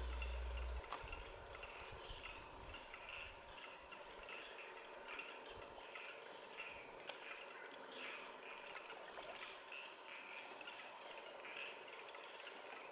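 Evening insect chorus: a steady high-pitched trill that never lets up, with many short faint chirps scattered through it.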